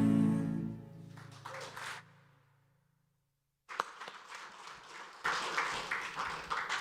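The song's final held chord fades away within the first second or so. After a short stretch of dead silence, congregation applause starts about four seconds in and carries on.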